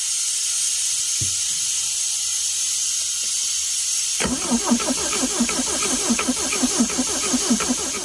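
A vacuum hisses steadily as it sucks on the fuel pump outlet hose. About four seconds in, the Pinzgauer 710M's air-cooled Puch four-cylinder engine starts cranking over on the starter, chugging evenly about five times a second without catching. No fuel is reaching the pump, because the fault lies before the pump.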